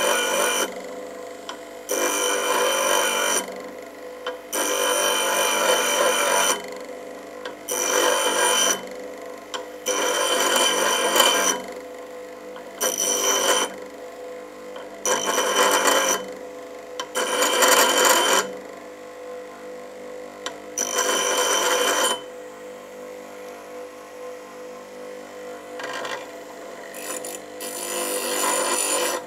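Bench grinder running while a metal casting is pressed against the wheel by hand in short strokes: about ten grinding bursts of a second or two each, with high steady tones, and the quieter hum of the running wheel between them. The rough spots are being ground off the casting.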